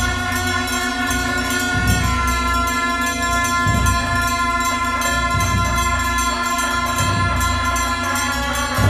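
Tibetan Buddhist ritual music: a steady held drone of several sustained tones, with a low beat about every two seconds.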